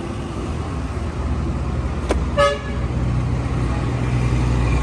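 Steady low rumble of motor traffic, with a sharp click and then one short vehicle-horn toot about halfway through.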